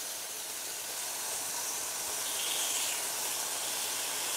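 Char siu-marinated chicken breast strips sizzling steadily on a ribbed electric indoor grill plate.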